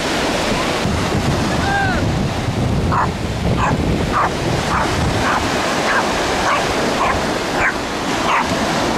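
Small dog barking at the waves in a quick string of short, high yaps, starting about three seconds in, over the steady wash of breaking surf.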